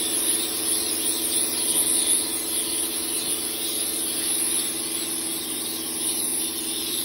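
Kärcher K3 Power Control pressure washer running steadily, its pump motor humming under the hiss of the water jet from the variable lance on its low-pressure soft setting.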